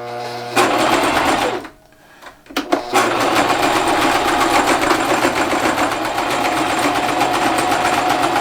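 Electric sewing machine stitching through denim. It hums as it starts, runs fast for about a second and a half, pauses briefly, then stitches steadily at a rapid even rate.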